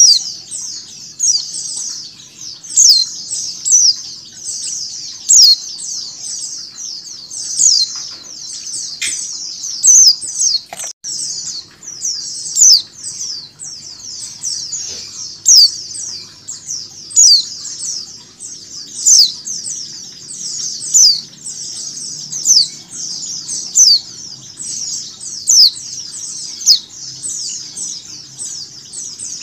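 White-eyes (pleci) calling: a female's calls mixed with a recording of a flock chattering. It is a dense, unbroken high twittering with loud, sharp falling chirps standing out about every second or two.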